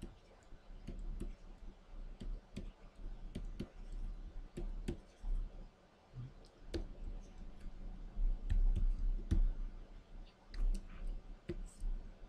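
Irregular light clicks and taps of a pen stylus working on a Wacom Cintiq pen display, a few every second, over a faint low hum.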